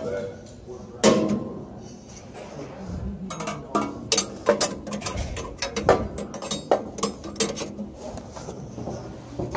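Irregular metallic clicks and clanks of hand tools and metal parts being handled, bunched most thickly in the middle of the stretch.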